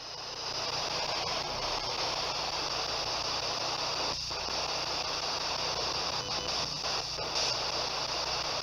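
Ghost box radio scanner (S-Box) sweeping the radio band, giving a steady hiss of radio static with a few faint, brief breaks in it.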